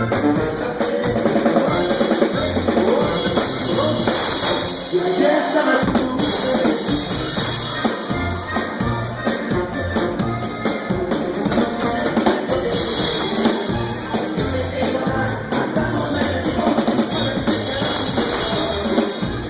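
Band music, an instrumental stretch without singing, carried by a drum kit with a steady bass-drum beat and snare.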